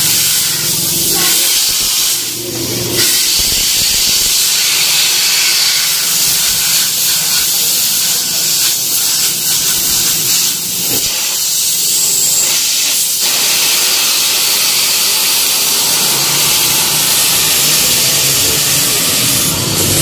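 A loud, steady hiss that holds through the whole stretch with no clear pitch.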